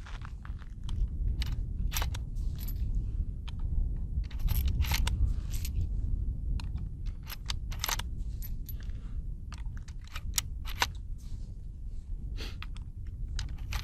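Winchester Model 1873 lever-action rifle being loaded: .45 Colt cartridges pushed one after another through the side loading gate into the tube magazine, a run of sharp metallic clicks and clinks every second or two.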